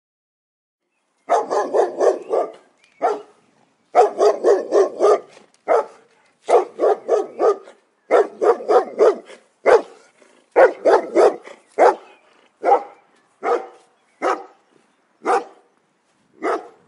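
A dog barking: after about a second of quiet, quick runs of several barks in a row, then single barks about a second apart toward the end.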